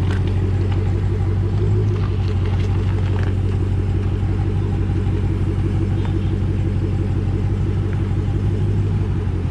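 Supercharged Hellcat V8 running steadily at low speed, with a deep, even rumble.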